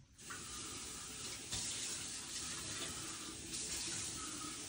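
Steady rush of running water that starts abruptly just after the beginning and holds level throughout.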